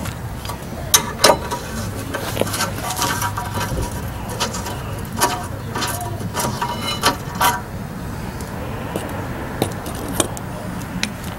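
Steel rear brake hardware clinking and rattling as the caliper bracket and pads are worked loose by hand and with a pry tool. A quick run of sharp metallic clinks with short ringing, dying away after about seven and a half seconds.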